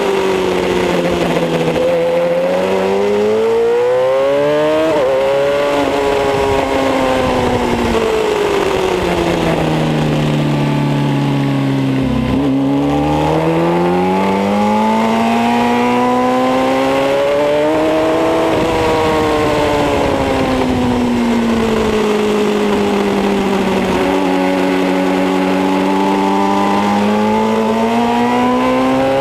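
Kawasaki ZX-10R's inline-four engine heard from on board at track speed, its pitch climbing under throttle and falling away under braking several times, with a sudden drop at a gear change about five seconds in. Wind rushes over the microphone throughout.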